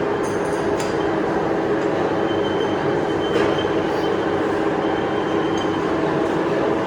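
Metal lathe running steadily, with a thin high whine that holds for a few seconds in the middle.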